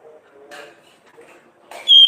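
Orange-headed thrush starting a loud whistled song phrase with a high, steady note near the end, after a stretch of faint soft sounds and a few light clicks.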